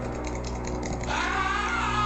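Cartoon soundtrack: a steady low drone with a run of light clicks, then a higher wavering tone sweeps in about a second in.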